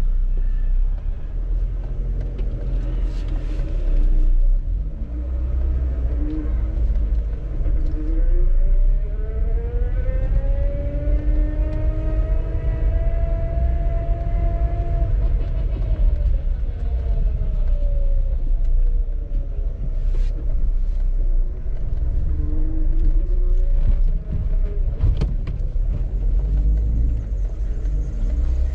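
Motor vehicle on a street: a steady low road rumble, with an engine note that rises and then falls in pitch over about ten seconds near the middle.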